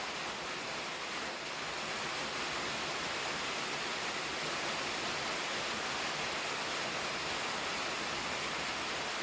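A steady, even hiss with no pitch or rhythm, strongest in the upper range, that does not change.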